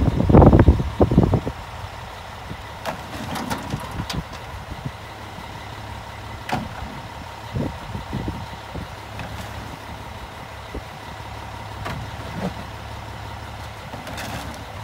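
Front-loading garbage truck idling steadily while recyclables are thrown by hand into its carry can: a loud clatter in the first second and a half, then scattered knocks and clunks over the steady engine hum.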